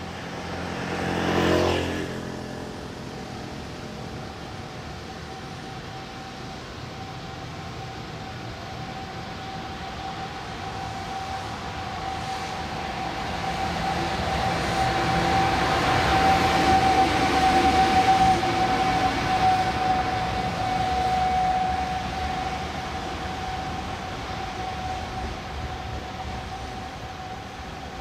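JR Freight EF210 electric locomotive passing, a single steady whine over the noise of its running gear, swelling to its loudest midway as it goes by and then easing off. A short, loud pitched blast sounds about a second and a half in.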